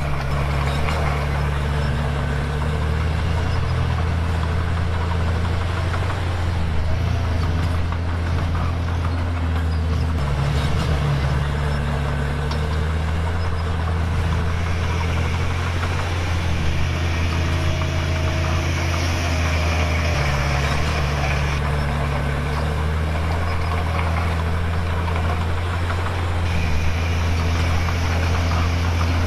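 Komatsu D51PX bulldozer's diesel engine running steadily under working load while pushing and spreading stone, its note changing every few seconds.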